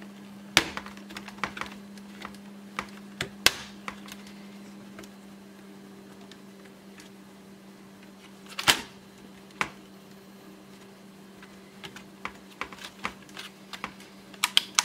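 Scattered clicks and taps of hard plastic laptop case parts being handled and pried apart, with one louder scraping click past the middle and a quick run of clicks near the end, over a steady low hum.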